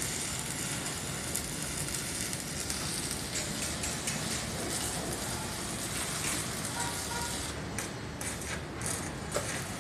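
Stick-welding arc burning on an E6013 electrode: a steady crackling hiss. Near the end it turns patchy, breaking off and catching again several times.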